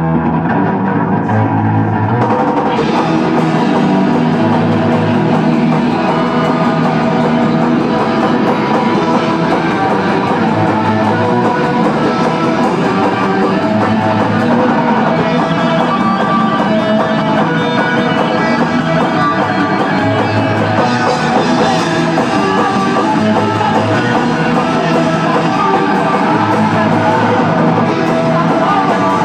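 Live rock band playing loud, with electric guitar and a drum kit; the sound grows fuller and brighter about two and a half seconds in as the cymbals come in.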